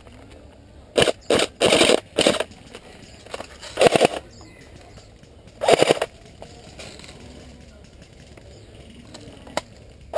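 Airsoft electric rifle's gearbox cycling in about six short bursts as the trigger is pulled again and again. The shots sound wrong and BBs roll out of the barrel instead of firing: the sign of a gearbox fault.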